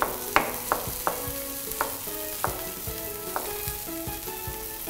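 A chef's knife slicing shallots on a wooden cutting board: an uneven run of sharp taps as the blade hits the board. Under it a steady sizzle comes from the steak in the hot pan, which goes on sizzling with the burner off.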